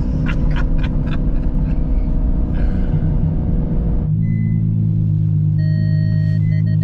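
Straight-piped V12 engine of a Ferrari F12 rumbling as the car drives. About four seconds in the sound changes abruptly to a steady low hum, with a string of short electronic beeps near the end.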